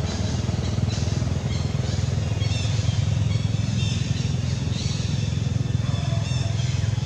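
An engine running steadily, a low even hum throughout. Brief high chirps sound above it a few times in the middle and later part.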